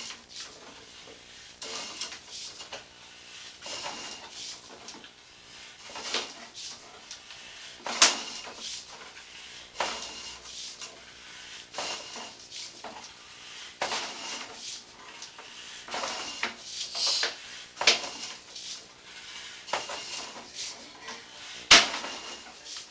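Irregular metallic clicks and clanks, every second or two, as a sewer inspection camera's push cable is pulled back out of the line through a 4-inch cast iron clean-out; two knocks, about 8 seconds in and near the end, are much louder than the rest.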